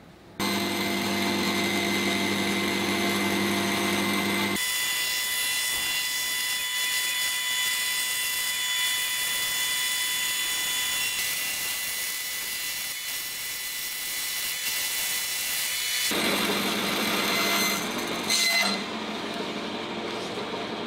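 Bandsaw running and cutting a curved router template along a paper pattern. The sound starts abruptly just after the beginning and switches abruptly between a steadier hum and a hissier cutting sound twice, with a brief knock near the end.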